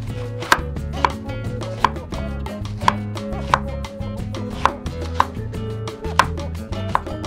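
Chef's knife slicing a peeled pear on a wooden cutting board: nine crisp chops at an uneven pace, about one every half second to a second, over background music.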